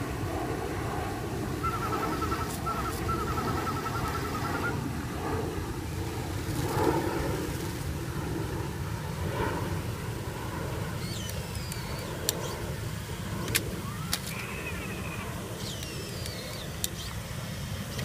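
Steady outdoor background noise, mostly a low rumble. A wavering whine comes in briefly early on, and the second half has a few sharp clicks and some short falling whistles.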